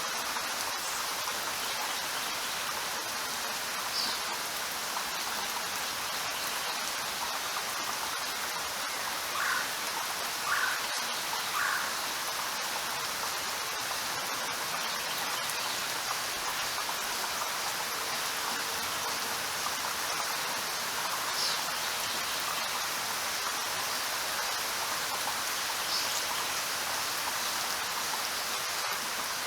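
Steady, even rainfall hiss. A few short, slightly higher sounds stand out briefly above it, three of them in quick succession about ten seconds in.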